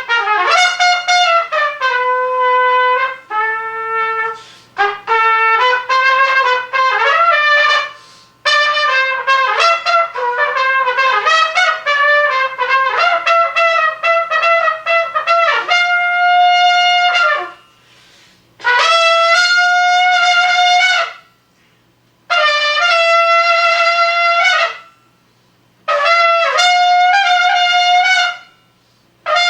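Unaccompanied solo on a single horn-like wind instrument. It plays runs of quick notes in phrases, then several long held high notes, each a couple of seconds long, with short breaks between them.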